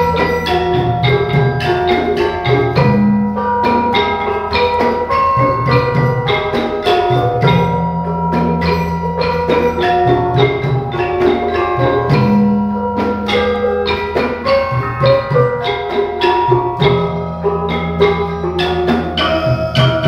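Gamelan ensemble playing: bronze-keyed mallet instruments struck in quick, even strokes that ring on, over long held low notes.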